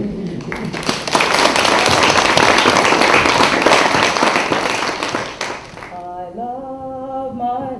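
Audience applauding, swelling about a second in and fading out after about five seconds; then a single voice starts singing a slow melody.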